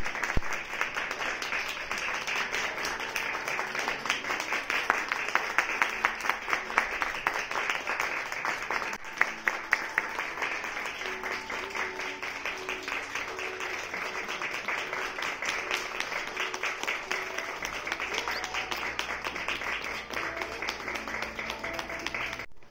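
An audience claps steadily and without a break, with quiet recorded music carrying a simple melody underneath. Both cut off abruptly near the end.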